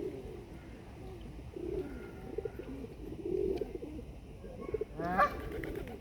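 Pigeons cooing over and over in low, wavering calls, with one short, louder and higher call about five seconds in.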